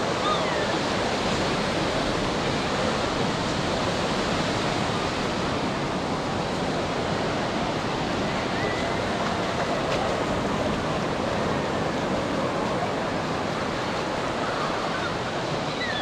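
Surf breaking and washing up a shallow sandy beach: a steady rushing wash, with faint distant voices and shouts of bathers mixed in.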